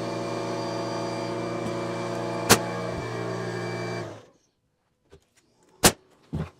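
Air compressor motor running with a steady hum, then shutting off about four seconds in. A pneumatic nail gun fires once about two and a half seconds in, and twice more near the end after the compressor has stopped.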